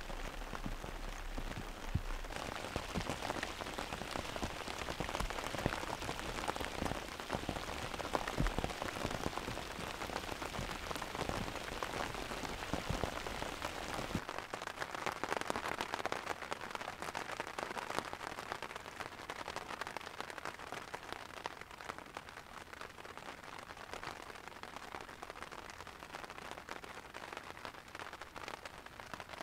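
Steady rain. In the first half there are many close, sharp drop hits on a tarp. About halfway through it changes to a softer, even hiss of rain falling on open lake water.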